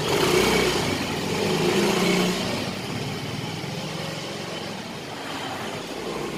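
Yamaha Mio 125cc Blue Core fuel-injected scooter engine running on the move under a rushing noise, louder in the first two seconds or so, then steadier and quieter. It is being test-ridden after a throttle position sensor adjustment meant to cure hesitation and a weak idle.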